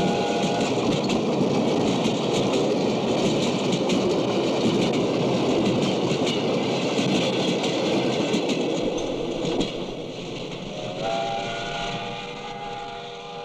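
A train rumbling and clattering over a railway bridge, with a steam whistle sounding briefly at the start and again near the end as the rumble fades.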